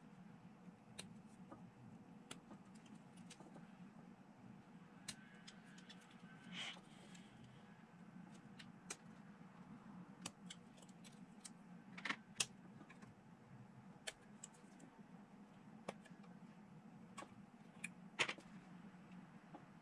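Sprue cutters snipping plastic miniature parts off a sprue: scattered sharp clicks, the loudest a pair about twelve seconds in and one near the end.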